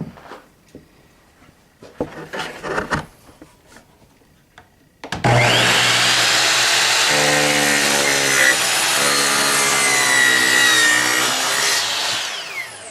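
Sliding miter saw switched on about five seconds in, its blade spinning up and cutting through a wide wooden board, then winding down near the end. Before it, a few light knocks of the saw and board being handled.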